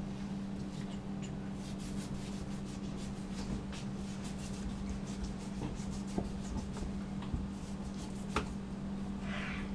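Fillet knife slicing and scraping the hide off a sheep's head, with soft rubbing and handling of the head on a wooden cutting board and scattered small clicks. A low steady hum runs underneath.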